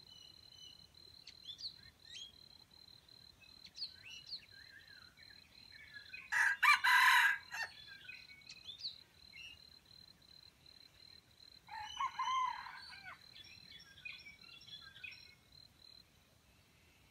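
Junglefowl rooster crowing once, loudly, about six seconds in, then a second, fainter crow around twelve seconds. Small bird chirps and a steady high insect trill run underneath, the trill stopping near the end.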